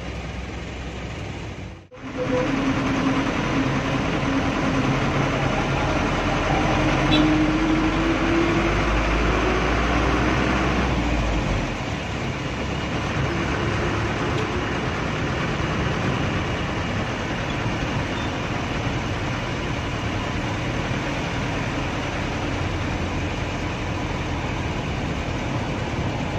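Cabin noise of a 1996 Mitsubishi 120 PS diesel bus on the move, with the engine running under road noise. The engine's pitch climbs slowly over the first ten seconds and the sound eases off about twelve seconds in, then runs steady. The sound cuts out briefly about two seconds in.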